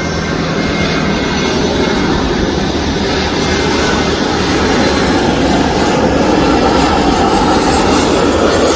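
Jet engines of a Boeing 737-300 (CFM56-3 turbofans) landing, a steady jet noise that slowly grows louder as the plane comes close over the runway.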